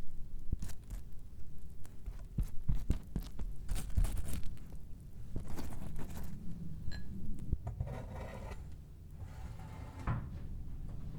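Kitchen handling sounds: a series of light knocks and clicks in the first half, then a brief scraping rustle about eight seconds in.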